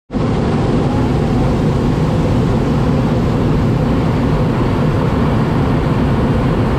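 Hot air balloon's propane burner firing in one long, loud, steady blast.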